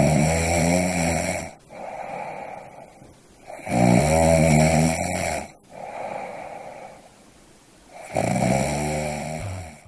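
A person snoring in a slow rhythm: three loud, rasping, pitched snores about four seconds apart, each about a second and a half long, with softer breath sounds between them.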